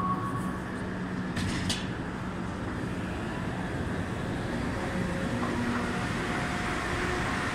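Steady mechanical rumble and hiss of a metro station heard while riding an escalator up: the escalator running, with a low hum under it.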